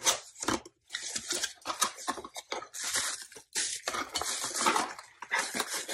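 Cardboard box flaps and plastic wrapping rustling and crinkling in irregular bursts as a wrapped glass mug is pulled out of its box.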